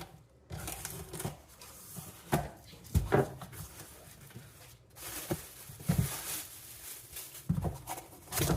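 Cardboard box and packaging being opened and rummaged through, with rustling and a few dull knocks as the parts inside are handled.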